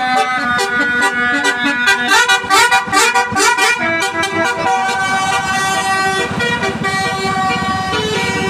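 A multi-tone basuri ("telolet") bus horn playing a melody: a quick run of short notes in the middle, then longer held notes.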